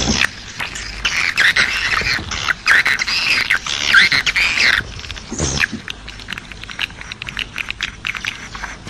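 Swiftlet calls: a dense twittering of rising-and-falling chirps for about the first five seconds, then mostly rapid dry clicks with a few chirps.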